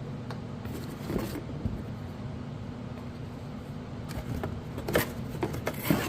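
Scattered knocks, clicks and rustles of a new polisher and its packaging being handled and unpacked, the sharpest about five and six seconds in, over a steady low hum.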